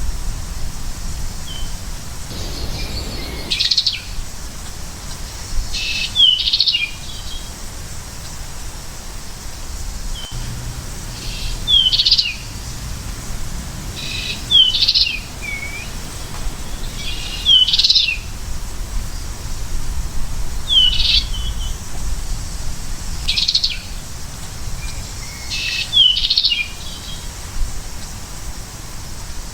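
American goldfinch calling: short phrases of high chirps with quick falling notes, repeated about every three seconds over a low steady background rumble.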